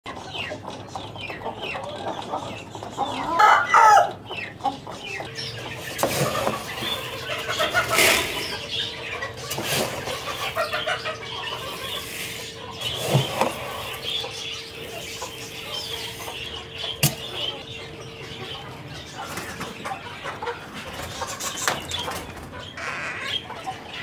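Aseel roosters clucking, with one loud call about three and a half seconds in. Sharp knocks sound here and there.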